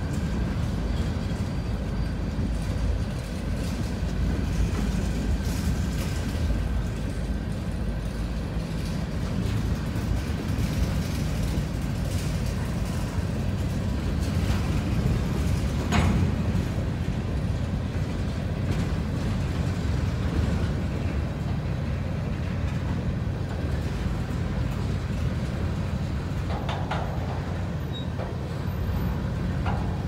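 Covered hopper cars of a freight train rolling past at a steady pace: a continuous low rumble of steel wheels on rail, with one sharp knock about halfway through.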